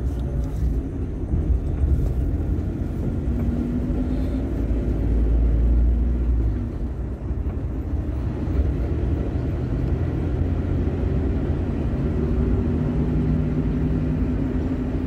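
Car driving along a road, heard from inside the cabin: a steady low rumble of engine and tyre noise with a faint engine hum, swelling a little about five seconds in.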